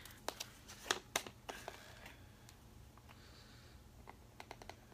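Light clicks and taps of small makeup items being handled. There are a few sharp ones in the first couple of seconds and a quicker run of ticks near the end.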